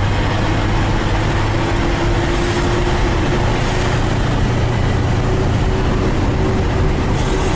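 KamAZ diesel truck heard from inside its cab while cruising at highway speed: a steady engine drone mixed with road and tyre noise, with a faint thin whine that edges slightly up in pitch.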